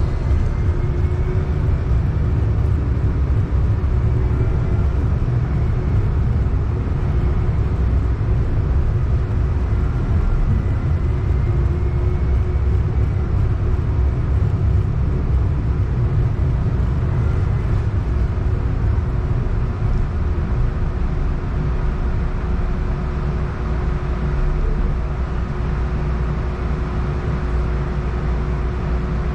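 Cabin noise of a Siemens S70 streetcar running on its track: a steady low rumble. A faint motor whine rises and falls in pitch in the first half, and a steady hum carries on through the rest.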